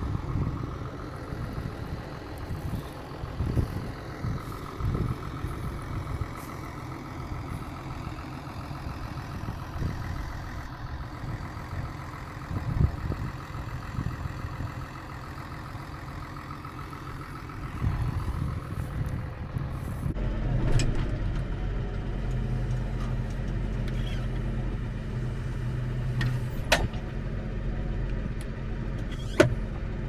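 Tractor engine running, heard from outside with an uneven rumble. About twenty seconds in the sound changes abruptly to a steady, even engine hum as heard inside the tractor cab, with a couple of sharp clicks near the end.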